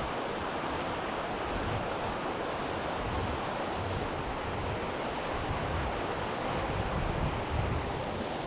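The Spokane River rushing below, a steady roar of fast water, with some wind rumble on the phone's microphone.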